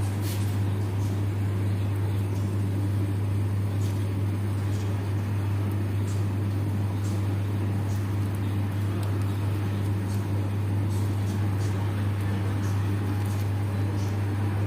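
A steady low mechanical hum with fainter overtones and a few faint ticks.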